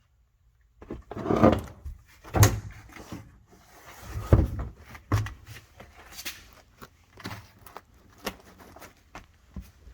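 Irregular knocks, clunks and rattles of car interior parts being worked loose and handled during dismantling. They start about a second in and are loudest in the first half, then turn to lighter taps.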